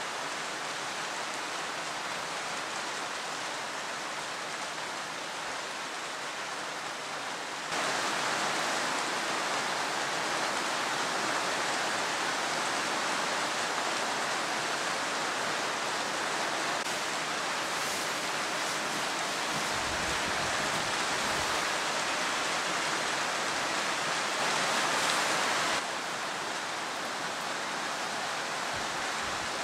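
Steady rushing hiss with no clear pitch, stepping up in level about eight seconds in and dropping back a few seconds before the end.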